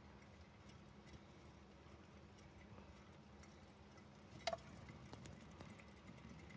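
Faint ticking and light pattering from a Roborovski hamster cage and exercise wheel, with one sharp click about four and a half seconds in.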